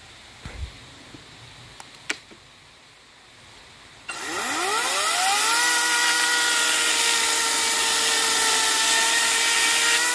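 Battery-powered chainsaw spinning up about four seconds in, its pitch rising for over a second, then running at a steady high speed before it begins to wind down with a falling pitch at the very end. A couple of light clicks come before it starts.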